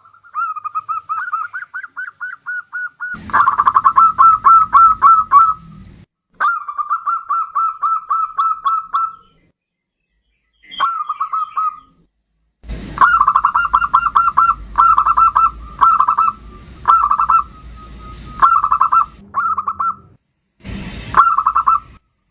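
Zebra dove (perkutut) singing: several phrases of rapid, rhythmic cooing notes, each phrase several seconds long, separated by short silences. Phrases start and stop abruptly, as in an edited lure recording, and some carry a hissy background.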